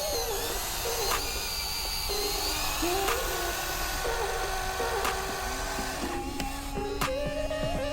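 Small electric motor and hydraulic pump of a 1/14-scale hydraulic RC excavator whining, several tones shifting up and down in pitch as it works, with occasional sharp clicks.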